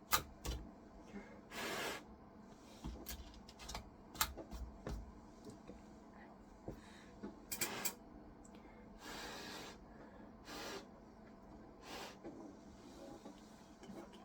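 Scattered small clicks and taps, with several short rustling bursts, from handling a computer keyboard with its keycaps off while cleaning between the switches.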